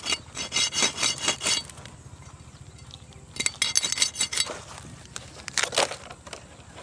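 Guinea fowl giving harsh, rapid rattling calls in two bursts, each a second or more long, with a shorter, lower rasp near the end.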